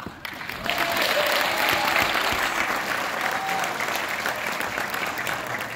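Audience applauding, the clapping starting as the music cuts off and tapering near the end.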